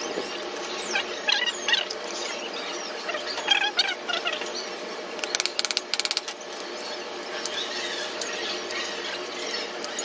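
Metal chain being handled and fitted to a wooden parrot stand, with a quick run of rattling clicks about five to six seconds in and short high squeaks scattered throughout.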